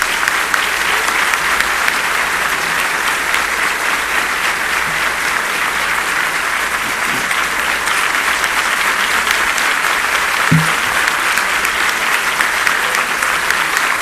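A large audience applauding steadily, a long unbroken round of clapping from many hands.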